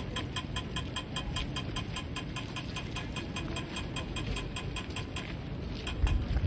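Pedestrian crossing signal ticking rapidly and evenly, the audible cue that the walk light is green. Low street rumble underneath, with a couple of low thumps near the end.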